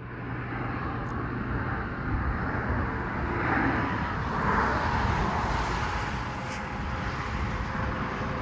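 Steady noise of interstate highway traffic passing close by, a dense rumble with passing swells.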